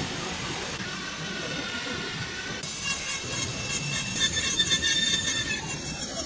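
Electric rotary carving tool with a small burr, running at high speed and grinding fine detail into hardwood: a steady high-pitched whine over a rough grinding rasp. The pitch of the whine changes abruptly about a second in and again near three seconds.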